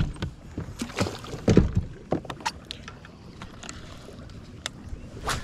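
Scattered, irregular knocks and clunks aboard a bass fishing boat, about half a dozen sharp hits over a few seconds.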